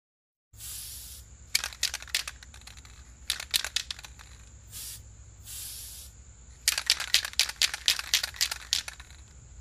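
Aerosol spray paint can being shaken and sprayed: quick runs of rattling from the mixing ball alternate with short hisses of spray, over a faint steady low hum.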